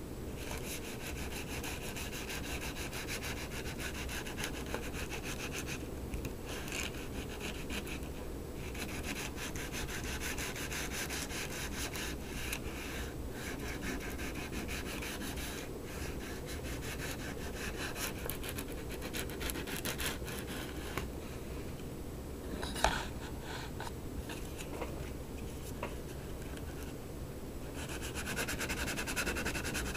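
Sandpaper rubbed back and forth over the stainless steel back of an iPod touch 4th generation, brushing the polished metal to a matte finish: a steady scratchy sound of many quick strokes with short pauses. A single sharp click about three quarters of the way through.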